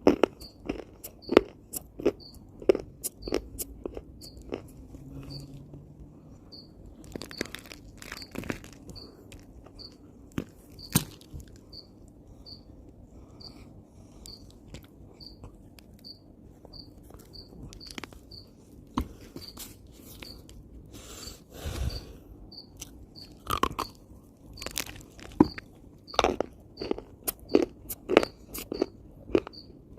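A person biting and chewing lumps of dry earth: sharp, irregular crunches, thickest about the first three seconds and again near the end. A cricket chirps at an even pace in the background, a little more than once a second.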